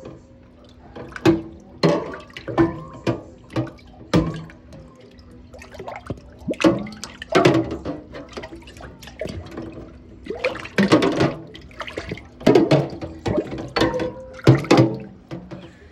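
Dishes donging and clanking as they are banged around in a sink. Irregular clusters of knocks, each leaving a ringing tone that hangs on between hits.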